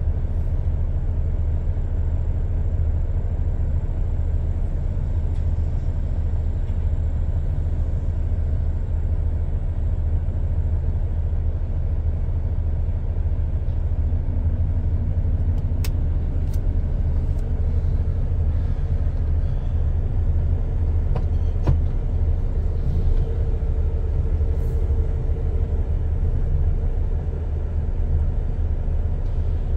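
Steady low engine rumble heard from inside a lorry cab as it idles and creeps forward in a traffic queue, with a few light clicks in the second half.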